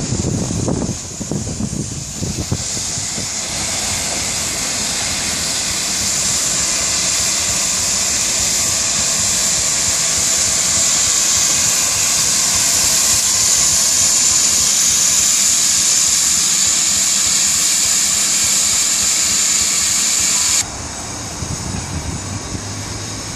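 Steady hiss of steam escaping from GWR Castle-class steam locomotive 5029 Nunney Castle as it runs slowly into the platform, a white plume of steam showing low down by its front wheels. The hiss builds over the first couple of seconds, then cuts off abruptly near the end, leaving a quieter low hum.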